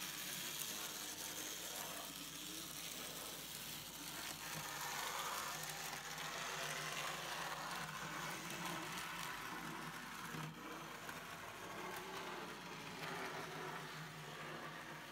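N-scale model trains running on the layout: small electric motors whirring and wheels rolling on the track, a steady, slightly rough running noise that rises and falls a little. The owner puts the not-quite-quiet running down to locomotives that still need new wheels and motor adjustment.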